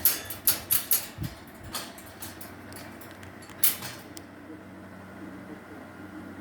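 A quick run of sharp light clicks or taps in the first two seconds, one more click near the middle, then only a faint steady hum.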